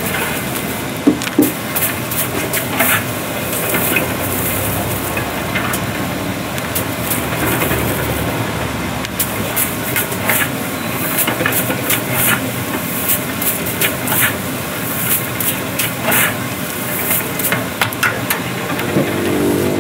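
Chestnut-roasting kettle with its stirring arm churning hot river sand: a steady mechanical hum and hiss of moving sand, with frequent sharp clicks and rattles as a wire-mesh scoop digs through the sand and knocks against the pan.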